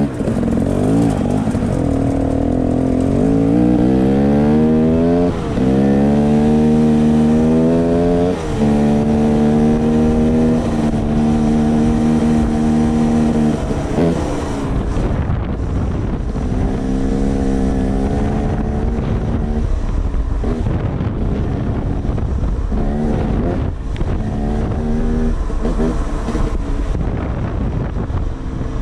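Off-road motorcycle engine pulling hard along a dirt trail: its note climbs in pitch and drops back at an upshift twice in the first several seconds, then holds steady. From about halfway on the throttle goes on and off, the engine note coming in short stretches.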